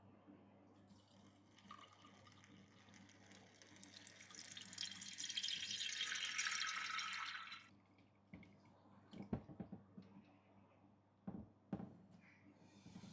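Liquid being poured into a container, the sound rising in pitch as it fills, then stopping suddenly about two thirds of the way in. A few short knocks follow.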